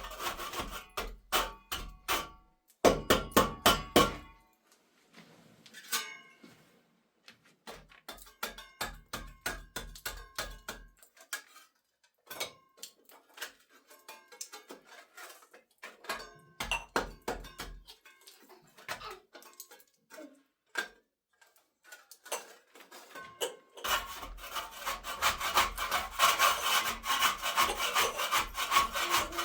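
Hand-tool building work: quick runs of sharp tapping knocks, then scattered knocks, and from near the end a steady rasping scrape like sawing.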